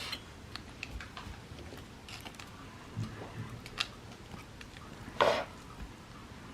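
Dishes and cutlery being handled: scattered light clinks and taps, with one louder clatter about five seconds in.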